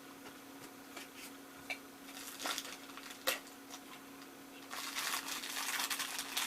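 Packaging of a Funko Soda can being handled and opened: a few separate clicks and taps, then steady crinkling of plastic wrap over the last couple of seconds.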